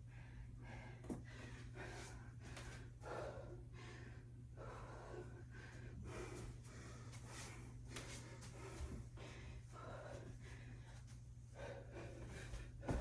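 A person breathing hard and gasping, about one breath a second, from the exertion of doing burpees, over a steady low hum.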